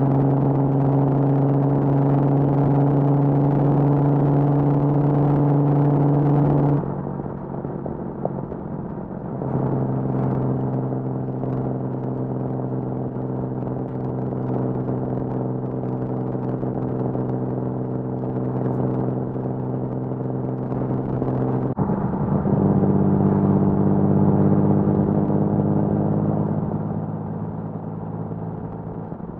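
1979 Datsun 280ZX's L28 inline-six, on triple Weber carbs, running through a 6-2-1 header and HKS Hi-Power 2.5-inch exhaust at a steady cruise. The steady exhaust note drops away and goes quieter about seven seconds in, and comes back steady a couple of seconds later. It settles to a lower pitch about two-thirds of the way through and fades near the end.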